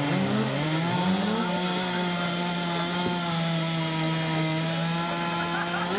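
Two-stroke chainsaw engine running at high revs. The revs rise and fall for about the first second and a half, then hold steady at full throttle.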